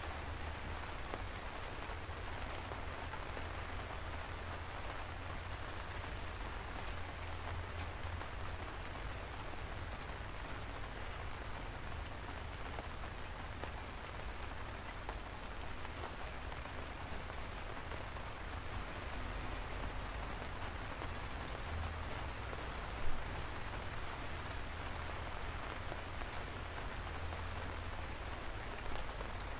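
Steady rain falling, with a low rumble underneath and scattered sharp drop ticks. One louder tick about three quarters of the way through.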